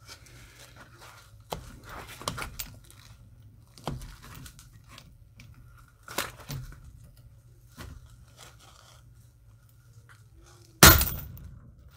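Chain and padlock clinking and knocking as a Ramset Cobra+ powder-actuated nail driver is set against the padlock. Near the end comes one loud, sharp bang with a short ringing decay: the tool firing into a Master Lock Level 6 padlock. The shot does not break the hardened shackle but breaks the locking bar that holds it.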